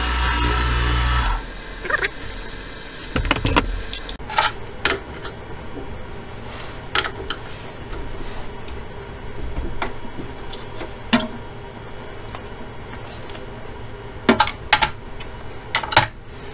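Wood lathe running with the turned wooden piece spinning under the polishing cloth, then switched off and going quiet about a second in. After that come scattered knocks and clicks of metal and wood as the workpiece is loosened and taken off the lathe chuck.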